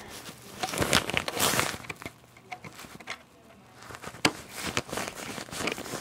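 Close handling noise: rustling and scattered light clicks as the screws of an iMac's memory access door are turned back in, with a quieter lull in the middle.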